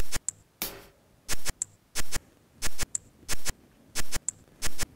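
A series of sharp clicks, mostly in quick pairs, recurring about every two-thirds of a second, with a short hissing swell about half a second in.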